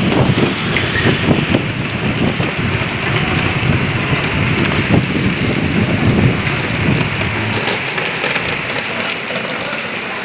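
Heavy rain falling steadily, with a low rumble of thunder under it that dies away about seven or eight seconds in.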